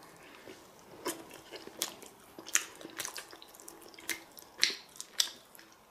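A man eating soft cooked pumpkin close to the microphone: wet lip smacks and chewing clicks, irregular, about two or three a second, starting about a second in.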